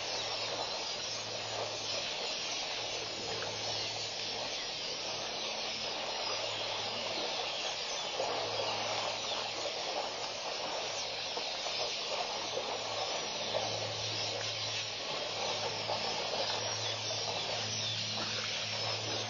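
Steady hiss, with a low hum that fades in and out every few seconds.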